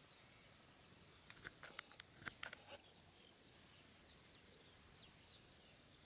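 Near silence in open countryside, with faint, short chirps of distant birds. A brief run of sharp clicks a little over a second in is the loudest sound.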